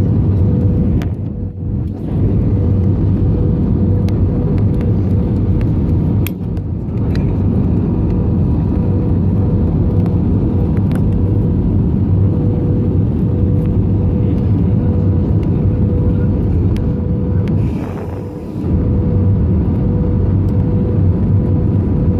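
Jet airliner's engines and airflow heard inside the passenger cabin during the landing approach: a loud, steady, deep noise with a steady hum at one pitch running through it. The level dips briefly about a second and a half in and again near 18 seconds.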